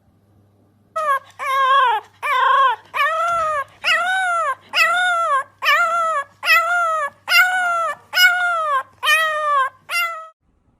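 A dog giving about a dozen short, high, whining howls in an even rhythm, each rising and falling in pitch, a little faster than one a second.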